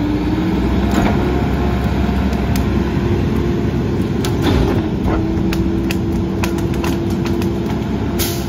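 Mack LE rear-loader garbage truck running with a steady hum while tree branches are stuffed into its hopper, giving repeated sharp cracks and snaps. A short, loud burst of noise comes near the end.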